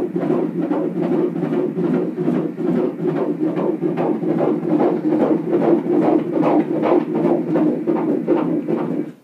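Fetal heartbeat played through an ultrasound scanner's Doppler audio: a fast, even pulsing, about two and a half beats a second, that cuts off suddenly at the end.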